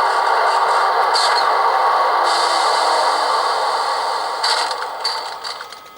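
H0 model Class 150 electric locomotive running, its ESU LokSound 4 decoder playing the electric-locomotive running sound over the rattle of the model's wheels on the track. The sound fades over the last couple of seconds and drops away near the end, as the model slows or runs off.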